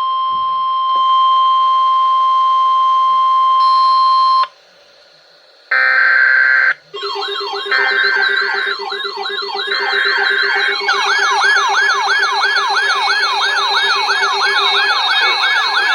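Emergency weather alert signalling. A steady alarm tone of about 1 kHz, the Weatheradio warning tone, sounds for about five seconds and stops. After a short gap come three short buzzy data bursts about a second apart, with several rapidly rising and falling siren wails layered in that build up and run on loudly.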